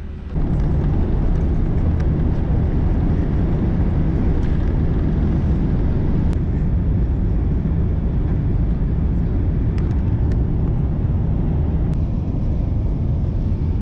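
Steady low cabin noise of an airliner in flight, the hum of jet engines and rushing air. It comes in suddenly just after the start.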